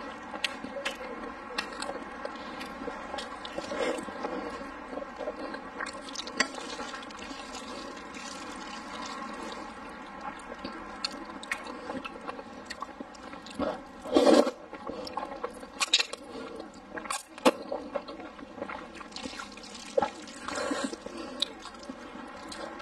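Close-miked eating of braised pork belly and noodles: steady wet chewing and lip-smacking clicks, with a loud noodle slurp a little past the middle, shorter ones after it, and another slurp at the very end.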